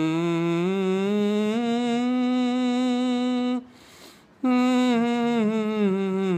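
A solo voice singing long held notes with a wavering vibrato, sung with the soft palate pressed down. The pitch climbs and holds, breaks off briefly about three and a half seconds in, then comes back and steps down.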